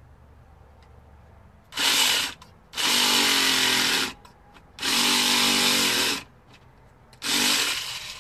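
Battery-powered pumpkin carving tool buzzing in four short runs of about a second each as it cuts into a pumpkin, stopping briefly between runs.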